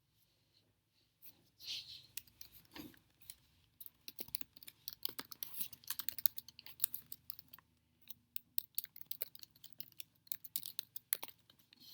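A fast, irregular run of small sharp clicks and taps, starting about four seconds in, after a short breathy hiss near two seconds in.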